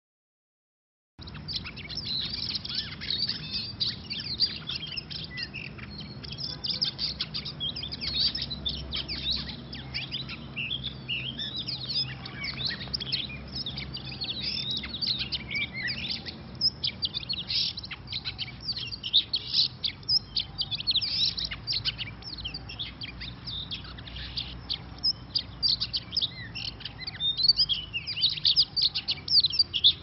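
Oriental magpie-robins in a cage trap calling: a dense, unbroken run of short, sharp chirps and chattering notes that starts abruptly about a second in and grows sharper near the end.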